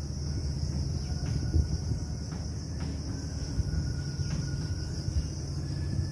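Chalk writing on a blackboard: a few faint scratches and taps of chalk strokes, over a steady high-pitched hiss and a steady low hum of background noise.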